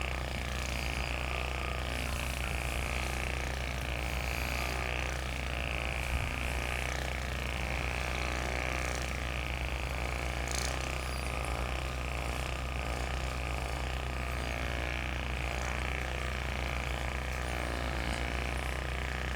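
Handheld electric massage device running with a steady low hum, used on the patient's fascia.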